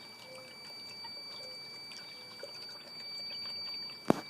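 Water trickling and pouring as a battery-backup sump pump circulates it through a bucket, with bubbles in the flow. A steady high tone runs underneath, and a single sharp click comes near the end.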